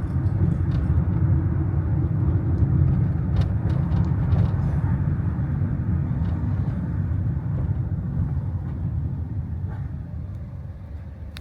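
Steady low rumble of a motor vehicle, fading slowly near the end.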